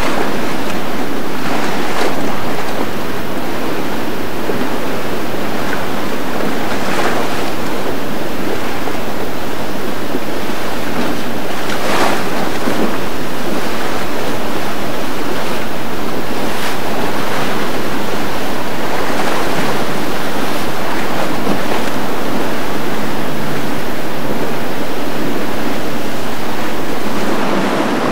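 Fast, turbulent canal current and boat wakes rushing and churning, with wind buffeting the microphone. A few brief, louder splashes break the steady rush.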